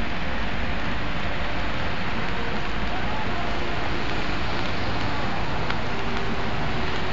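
Steady, even hiss of outdoor city street ambience on wet streets, with faint voices in the background.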